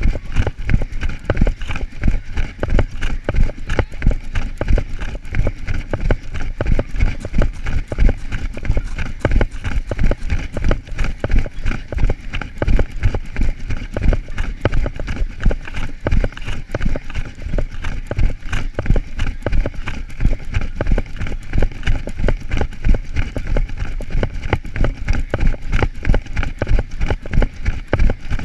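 A runner's footfalls on grass at a fast running pace, jolting the camera he carries: rapid, regular thuds.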